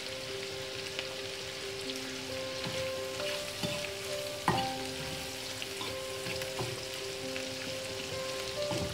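Curried lobster heads sizzling in oil in a non-stick frying pan, stirred with a metal fork that scrapes and clicks against the pan, with one sharper knock about halfway through.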